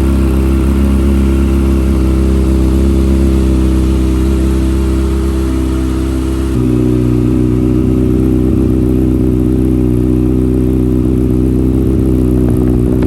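Kawasaki ZX6R 636 inline-four running steadily through an Akrapovic full-system exhaust. About six and a half seconds in, the note shifts abruptly to a slightly different steady tone.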